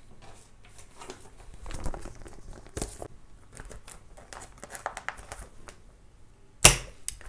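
Clear plastic photocard sleeve pages crinkling and rustling as they are handled on a ring binder, with a few small clicks. Near the end comes one sharp, loud click as the metal binder rings are snapped shut.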